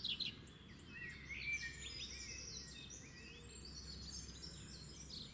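Birds chirping and twittering, many short high calls and quick pitch glides overlapping, over a faint steady low hum.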